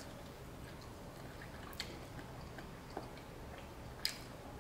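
A person chewing barbecued pork rib meat off the bone, close to the microphone, with a few short wet mouth clicks about two, three and four seconds in, the last the loudest.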